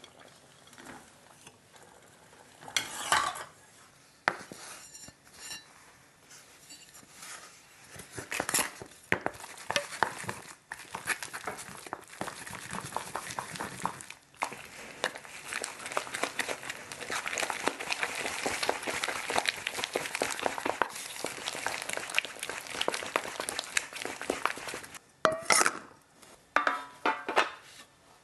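A pestle working rice in a bowl, a long dense run of quick knocks and scrapes, with a few louder knocks of kitchenware near the start and near the end.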